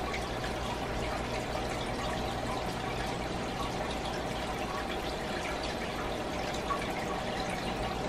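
Fish aquarium water trickling and splashing steadily, with scattered small plinks of drips, over a low steady hum.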